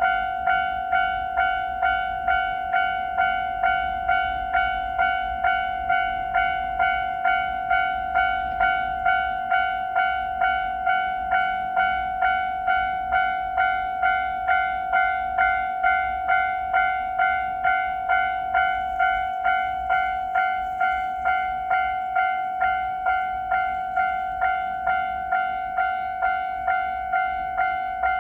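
Japanese level-crossing warning bell ringing its steady 'kan-kan' at a regular beat of just under two strikes a second, each ring fading before the next: the signal that a train is approaching and the barriers are down.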